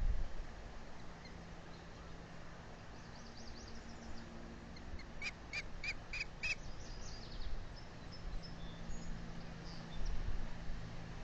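Osprey calling: a quick series of five sharp, high chirps about a third of a second apart, after a few fainter chirps, over a low wind rumble.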